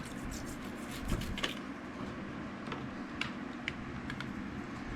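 Scattered light metallic clicks and ticks from handling a small steel folding knife, thickest in the first second and a half and then sparser, over a steady low hum.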